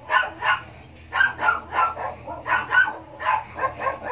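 Young kittens mewing over and over in short, high cries, about three a second.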